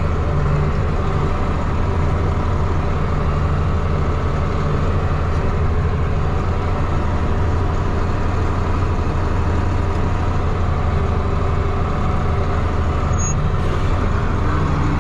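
Farm tractor's engine running steadily at working speed, a constant low hum, while it pulls a ditch bank cutter along a wood line.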